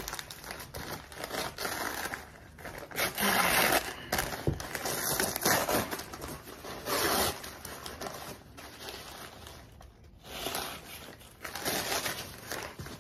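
A brown kraft-paper bag being unrolled and crumpled open by hand, in irregular rustles, loudest about three to four seconds in.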